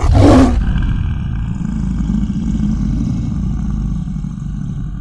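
A loud sound effect: a short rushing burst in the first half second, then a deep low rumble that slowly fades.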